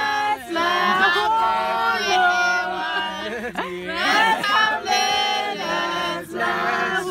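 A group of people singing together, several voices holding the same notes at once, with short breaks between phrases.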